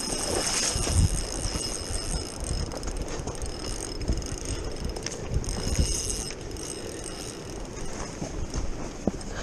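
Spinning fishing reel's mechanism whirring and clicking, over low buffeting from wind on the microphone.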